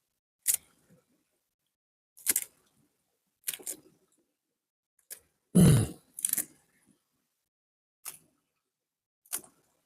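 A string of brief, sharp clicks and scrapes about a second apart, with one heavier low thump about halfway through, and dead silence between them.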